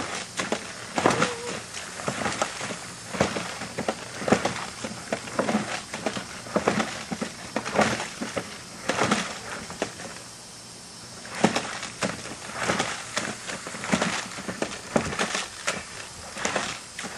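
Plastic toy push mower clattering and clicking irregularly as it is shoved back and forth through wet mud, with a short lull about ten seconds in.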